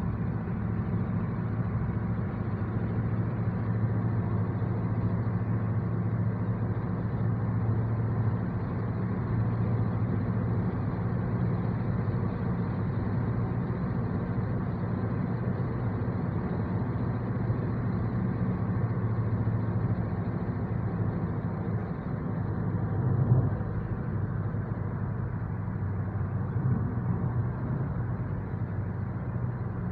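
Interior noise of a 2013 Honda Civic at cruising speed: a steady low drone of engine and tyres on the road heard from inside the cabin, with one brief louder bump about three-quarters of the way through.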